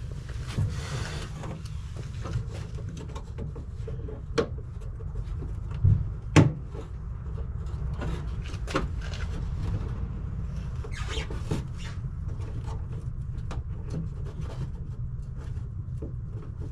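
Metal clicks, taps and scraping from working a greased lock rod into the door lock inside a 1989 Chevrolet Box Chevy door. A few sharper knocks come through, the loudest about six seconds in, over a steady low rumble.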